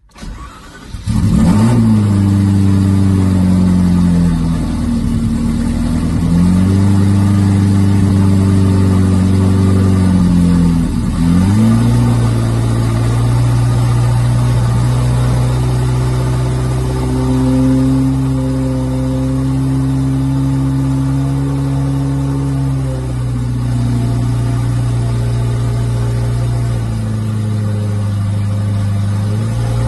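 Ferrari F40's twin-turbocharged V8 starting from cold, firing up about a second in and then running at a loud cold idle. The idle speed wanders, dipping and recovering a few times.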